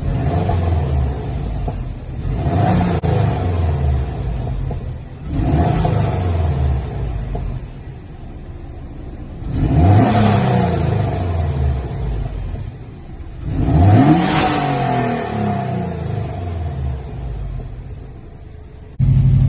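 Subaru Legacy GT's turbocharged 2.5-litre flat-four exhaust, revved about five times from idle and falling back between blips.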